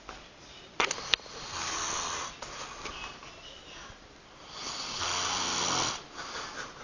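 A man snoring in his sleep: two long snores about three seconds apart, each lasting about a second. About a second in, just before the first snore, there are two sharp clicks.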